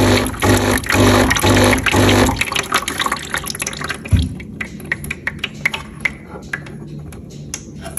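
Background music with a steady beat for the first couple of seconds, over hot water trickling from an espresso machine's twin spouts into its drip tray. About four seconds in there is a knock as a ceramic cup is set down on the drip tray, then faint trickling and light clicks.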